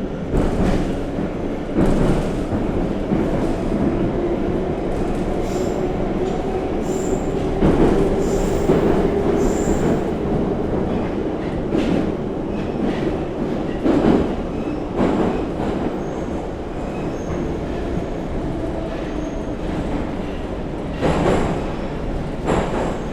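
Moscow Metro 81-717/714 "Nomernoy" train running between stations, heard from inside the car. There is continuous running noise with knocks from the wheels over rail joints, and short high wheel squeals in the middle.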